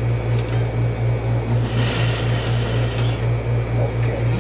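Juki industrial single-needle sewing machine stitching a straight seam at an even, slow pace: a low motor hum pulsing about five times a second with each stitch. A brief rustle of fabric comes about two seconds in.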